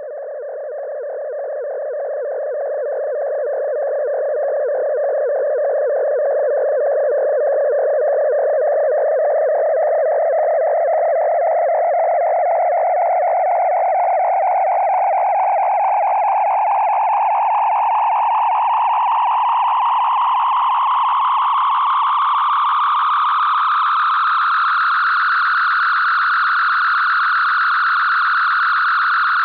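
Star Trek original series hand phaser overload sound effect: a fast-pulsing electronic whine that swells in loudness, climbs steadily in pitch for about 25 seconds, then holds at a high steady pitch.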